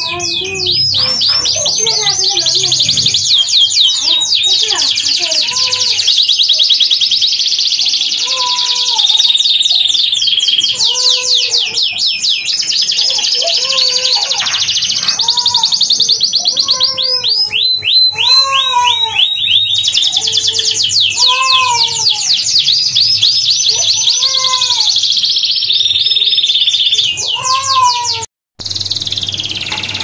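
Domestic canary singing a continuous song of long, rapid, high trill rolls, with slower, lower notes repeating about once a second underneath. The song cuts out for an instant near the end.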